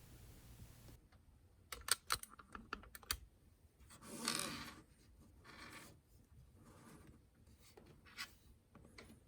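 Small clicks and light knocks from a pin-tumbler lock cylinder and tools being handled on a pinning tray, a cluster of them a couple of seconds in, with a brief rubbing scrape about four seconds in and a few fainter clicks after.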